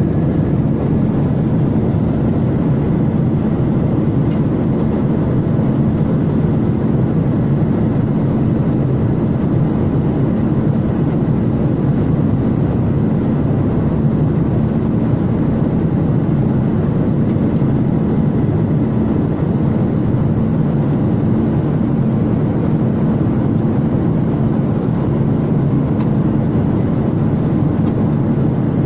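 Jet airliner cabin noise in cruise, heard at a window seat beside the engine: a steady, even low rumble of engine and rushing air with a faint steady hum in it.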